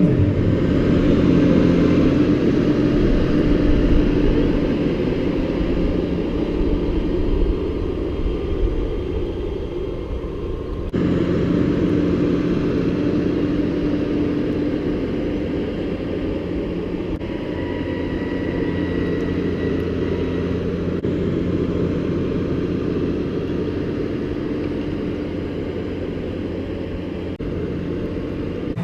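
Tractor engine running steadily while pushing wet, heavy snow with the loader bucket. The sound jumps abruptly about 11 seconds in and a few times later.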